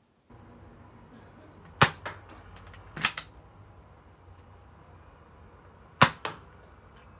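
Nerf Elite 2.0 Prospect foam-dart blaster firing three shots: three sharp snaps, about a second apart and then three seconds apart, each followed by a softer click.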